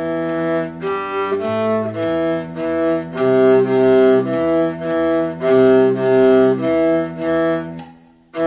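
A viola and a cello playing the same line an octave apart, the cello from notation-software playback and the viola bowed live, at half tempo. Notes change every half second to a second, stretching out near the end as the music slows, and the last note fades away shortly before the end.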